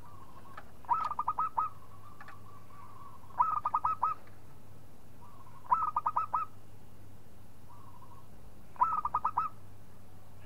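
Zebra dove (perkutut) singing its cooing song: four phrases, each a quick run of five or six clipped notes, roughly every two to three seconds, with faint drawn coos between them.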